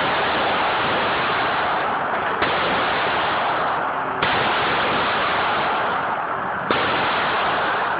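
Handgun shots at an indoor range: three shots, the first about two and a half seconds in and the others roughly two seconds apart. A loud, steady noise fills the gaps between them.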